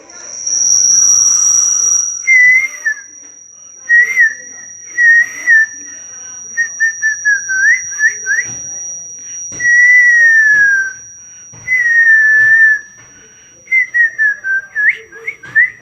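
A person whistling a wavering tune in short phrases, played through a loudspeaker from a phone voice-changer app. Under it runs a steady, high-pitched tone, loudest in the first couple of seconds.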